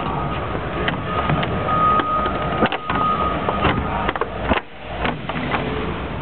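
The engine of a replica Citroën 2CV Sahara running with a steady low rumble, with scattered knocks and clicks and, for a while, a steady high whine.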